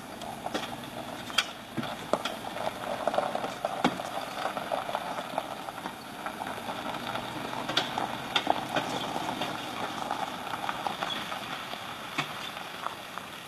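A Chevrolet Tahoe towing a travel trailer driving slowly over a dirt and gravel campsite track: a steady low vehicle noise with many scattered clicks and crunches from the tyres and the rig.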